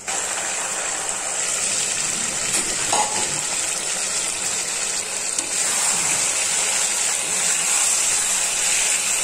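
Fried cauliflower and potatoes frying in onion-ginger-garlic spice paste in a pan: a steady sizzle at the kashano stage, where the masala is fried down with the vegetables.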